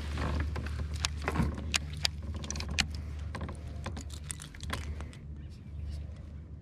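Irregular clicks, taps and light rattles of a fishing rod, reel and soft plastic swimbait being handled right at the microphone, over a steady low hum. The clicks are thickest in the first few seconds and thin out near the end.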